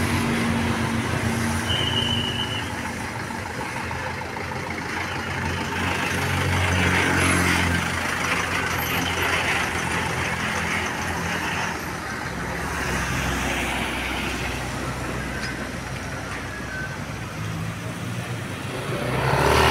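Diesel bus engine running as the bus moves past, with road traffic noise. It grows loudest about seven seconds in.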